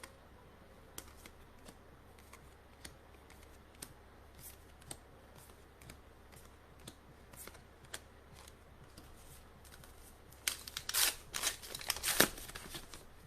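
Trading cards being handled and sorted by hand: scattered light clicks and card slides, then a louder stretch of rustling and crackling of cards and pack wrapping about ten seconds in.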